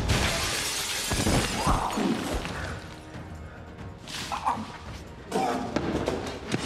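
Glass shattering as a body crashes into a glass display case, with fragments spraying for about a second. Then come further thuds and crashes about four and five seconds in, over a film score.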